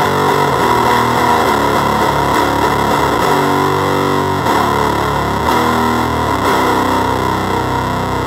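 Electric guitar played through a KHART Effects Omnifuzz fuzz pedal: heavily fuzzed chords strummed in a riff, each one ringing and changing every second or so.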